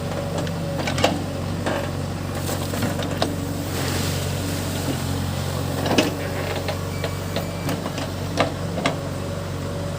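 Case backhoe loader's diesel engine running steadily, with a few sharp knocks and clanks from the working machine.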